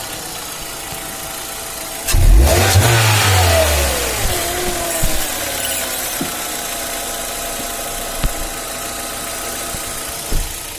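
Hyundai Elantra engine started about two seconds in: the revs flare up, then fall back into a steady idle. It runs with no whistle from the clutch release fork, which has just been greased to cure that whistle.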